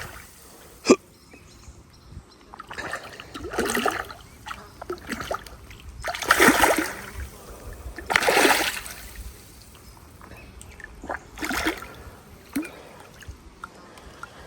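A hooked carp splashing at the water's surface in about five separate bursts, with a sharp knock about a second in.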